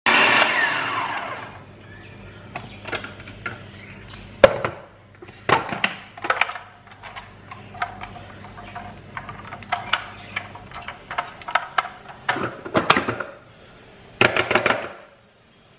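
Electric food processor motor winding down with a falling whine, then a run of sharp plastic clicks, knocks and rattles as the lid is unlocked and lifted off and the cutting disc is pulled out of the bowl.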